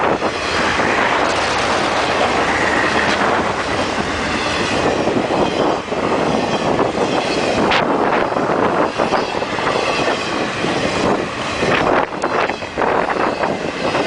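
Intermodal freight train of double-stacked containers and truck trailers on flatcars passing close at speed: a loud, steady rumble and rattle of wheels on rail, with a few sharp clicks about eight and twelve seconds in.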